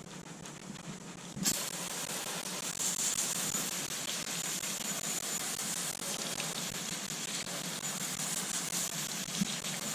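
Garden hose spraying water onto the boat hull, starting suddenly about a second and a half in and hissing steadily, rinsing off the scrubbed-in rust remover.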